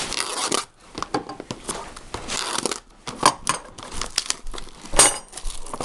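Plastic wrap and packaging crinkling and tearing as a trading-card hobby box is opened, in irregular rustles with sharp crackles and clicks; the sharpest crackle comes about five seconds in.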